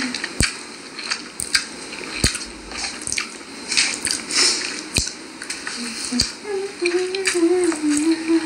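Someone eating instant noodles close to the microphone: wet chewing and slurping noises broken by sharp clicks. Near the end a voice hums a few wavering notes.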